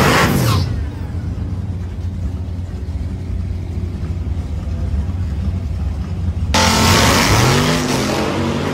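Supercharged Hellcat Hemi V8 in a single-cab Ram pickup: the revs fall away at the end of a burnout with tyre hiss, then the engine runs steadily as the truck rolls forward. About six and a half seconds in it goes suddenly to full throttle for a hard launch, loud with rising revs.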